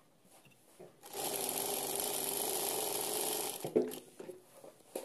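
Jack F4 industrial lockstitch sewing machine running steadily for about two and a half seconds, starting about a second in and then stopping, followed by a few light clicks. It runs smoothly with its newly fitted and timed shuttle hook, sewing without skipped stitches or cut thread.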